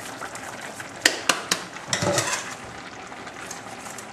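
Kitchen utensils clattering against a stainless steel cooking pot: three sharp clicks about a second in, then a short scraping clatter.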